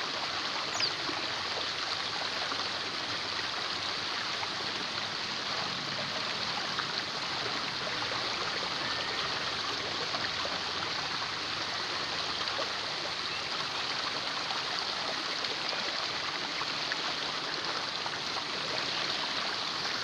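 Steady rushing and trickling of a flowing stream, with a brief high chirp under a second in.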